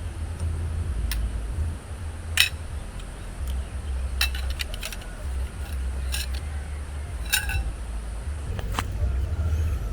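About nine light clinks and taps, scattered and irregular, with a short ring after each, the loudest about two and a half seconds in. Under them runs a steady low rumble of strong wind on the microphone.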